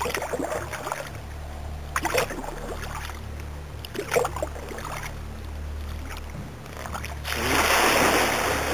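Kayak paddle working the water: a few light knocks and drips, then about seven seconds in a longer splash and swish as the blade sweeps through. A low steady hum runs underneath.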